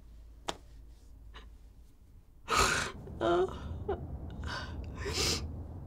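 A woman's breathless laughter: a sharp gasping breath about halfway in, then a short voiced laugh and two more breathy gasps.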